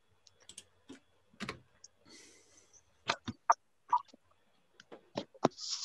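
Irregular clicks and taps from a computer keyboard and mouse, loudest in the second half, with two brief soft rustles.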